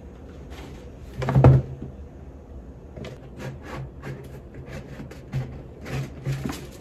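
Cardboard gift boxes being handled: one loud thump about a second and a half in, then a run of short scrapes, knocks and rustles as a box is lifted out and its lid worked.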